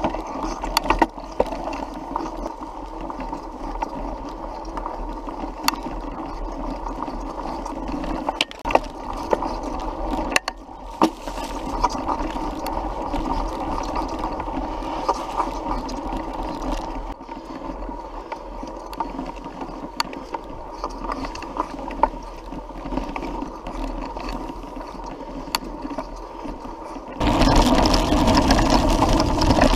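Mountain bike riding over a dirt trail, heard from the bike: steady whirring of the tyres and drivetrain with scattered clicks and rattles. It gets suddenly louder near the end.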